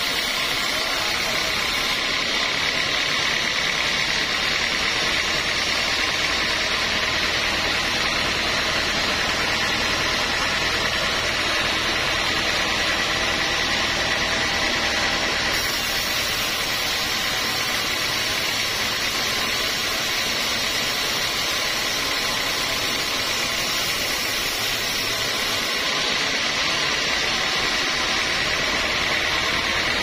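Band sawmill blade cutting lengthwise through a teak beam: a steady rush of the cut with a constant high whine from the running band saw.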